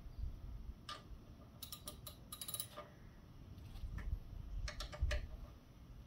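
Scattered light clicks and ticks in small irregular groups as the Kawasaki Vulcan VN900's front wheel and disc brake, with freshly changed pads, are turned and handled by hand, with a duller knock about five seconds in.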